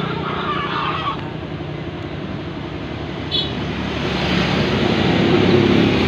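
A motor engine running steadily, swelling a little louder in the last couple of seconds, with a short chicken call about three seconds in.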